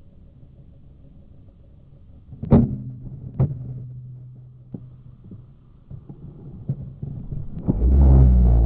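Slowed-down sound of a cast with a Shimano '92 Scorpion Metanium XT baitcasting reel: a sharp click about two and a half seconds in, followed by a ringing low tone and a few fainter clicks. Near the end a loud, deep rumble with falling tones sets in as the rod swings through the cast.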